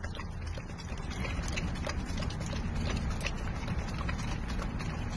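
A dog licking and lapping whipped cream from a small paper cup: a quick, irregular run of small wet clicks and smacks, over a steady low rumble.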